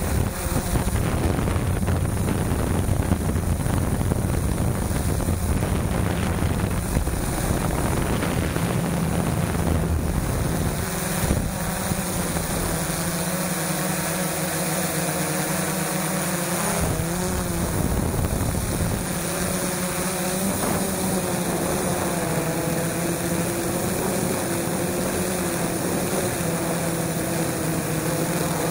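Quadcopter motors and propellers running in flight, heard from a camera carried on the drone, with wind buffeting the microphone for the first ten seconds or so. After that the motor pitch wavers up and down as the drone manoeuvres.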